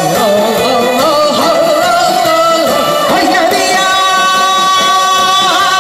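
A woman singing a Korean trot song into a microphone over amplified backing music, her voice wavering, then holding one long note through the second half.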